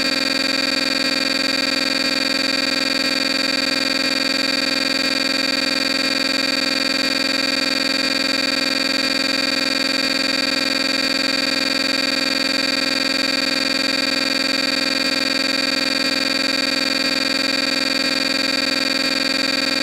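Steady, unchanging electronic buzz: several fixed tones held over a hiss, with no music or voice.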